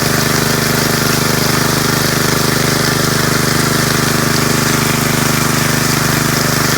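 An engine running steadily at constant speed, with a fast, even pulsing and no change in pitch.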